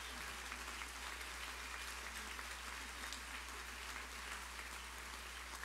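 Soft, steady applause and crowd noise from a large audience, over a low steady hum.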